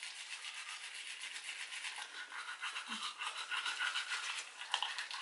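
Two people scrubbing their teeth with manual toothbrushes, one of them bamboo: a steady, fast, scratchy hiss of bristles on teeth.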